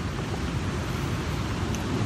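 Steady wind buffeting the microphone, a low rumble over the wash of surf breaking on a rocky shore.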